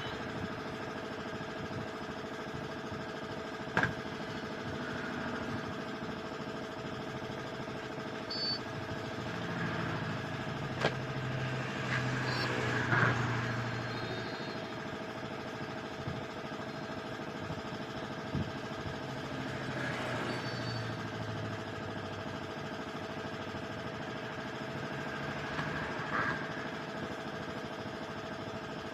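An engine runs steadily throughout. A deeper engine note swells for several seconds in the middle, and there are a few sharp knocks.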